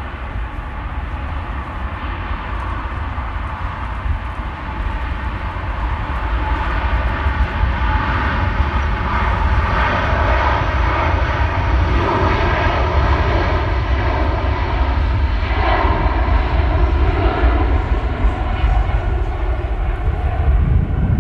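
Airbus A330neo's Rolls-Royce Trent 7000 turbofans at takeoff thrust: a loud jet roar with a steady buzzing tone and deep rumble, growing louder about a quarter of the way in and holding.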